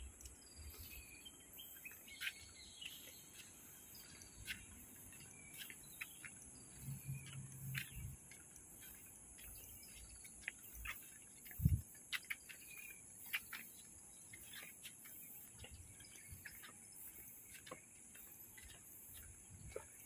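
Birds chirping in short, scattered calls over a steady, high insect buzz. A single low thump about halfway through is the loudest sound.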